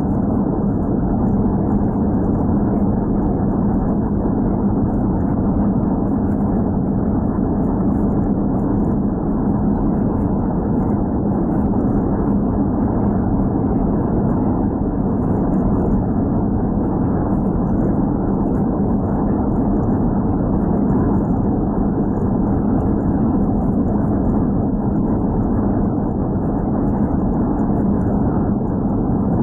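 Steady road and engine drone inside a car's cabin at highway speed, mostly low rumble with a hum around 200 Hz and no treble.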